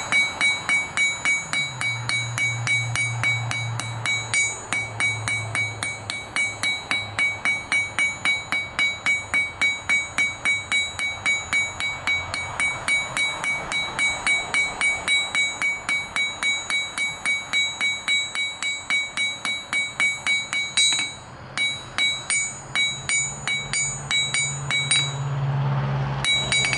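Ball-peen hammer striking a red-hot 5/16-inch steel rod on an anvil in a steady rhythm of about three blows a second, with a high ring carrying between the blows and a short pause about 21 seconds in. The rod is rotated under the hammer to round off its tapered point.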